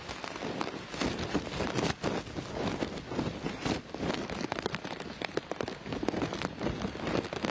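Heavy typhoon rain pouring down and hitting surfaces, a dense patter that swells and eases unevenly.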